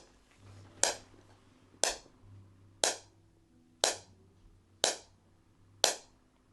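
SoftWave shockwave therapy applicator firing against the ankle: six sharp snaps, evenly about one a second. It is running at its low starting intensity and slow pulse rate.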